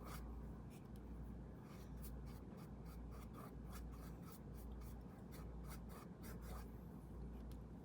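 Paintbrush brushing a base coat onto a canvas: faint, quick scratchy strokes in an irregular run, over a low hum.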